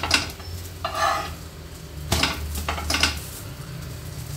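Metal spatula scraping and knocking against a flat griddle (tawa) as omelet-coated bread sandwiches are turned over, in several short strokes, with food sizzling on the hot pan. A steady low hum runs underneath.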